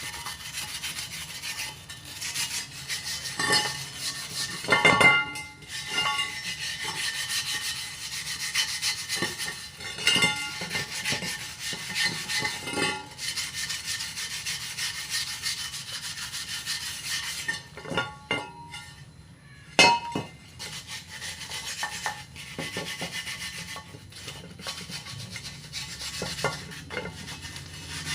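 Hand scraping and rubbing on a metal motorcycle wheel rim, irregular strokes with occasional sharp clinks, as paint softened by remover is stripped off.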